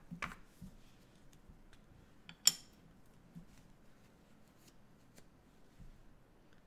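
Light handling sounds of craft supplies on a wooden table: a card shifting, soft taps, and one sharp click about two and a half seconds in as a small plastic ink pad is handled.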